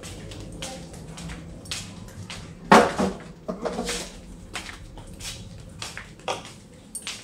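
Footsteps on a tiled floor with small knocks and rustles at irregular intervals, and one louder thump about three seconds in.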